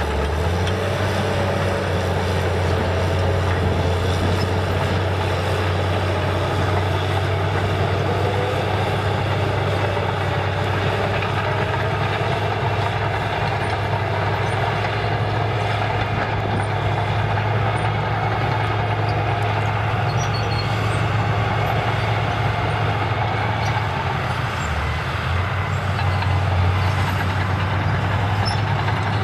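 Cat D5K2 low-ground-pressure bulldozer's diesel engine running steadily under load as the machine pushes dirt and climbs the pile, with the clatter of its steel tracks. The engine note dips briefly about 24 seconds in and then comes back stronger.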